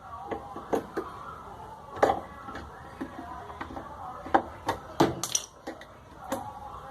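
Irregular sharp clicks and knocks of hard plastic and metal parts being handled and pushed together while a replacement arm is fitted into a washing machine's brake mechanism, the loudest about two seconds in and around five seconds in. Background music plays underneath.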